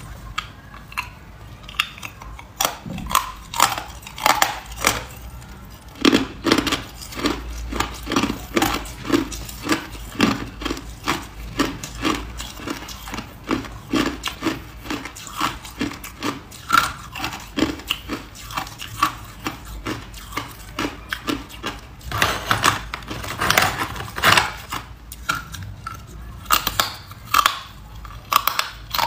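Hard white ice being bitten and chewed, a steady run of sharp crunches a few times a second. The crunching is louder for a few seconds near the end.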